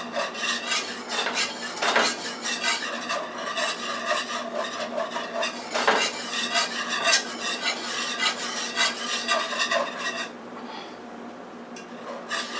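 A utensil scraping and clinking around a metal frying pan, stirring a thick, paste-like roux of melted margarine and flour. The stirring stops for about two seconds near the end, then starts again.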